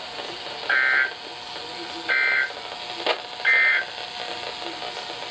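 Emergency Alert System end-of-message data tones: three short bursts of two-tone digital screech, evenly spaced about a second and a half apart, marking the end of the alert broadcast.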